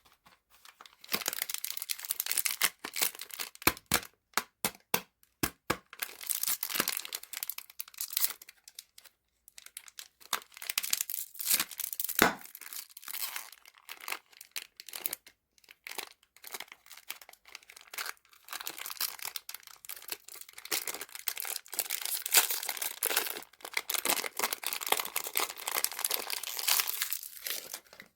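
Candy wrappers being crinkled and torn open, a dense crackle mixed with sharp clicks, with short pauses, stopping suddenly near the end.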